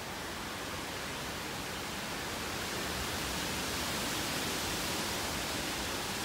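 Tropical-storm wind rushing through tall pine trees, swelling in a gust to its loudest about four seconds in.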